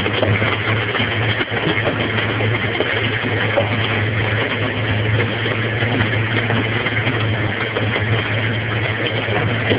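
Countertop blender running steadily at full speed, blending a shake with ice and pineapple chunks: a constant motor hum under a loud, even whirr.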